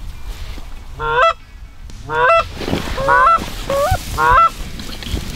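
Geese honking: about five loud honks in a quick series starting about a second in, each call sliding upward at its start.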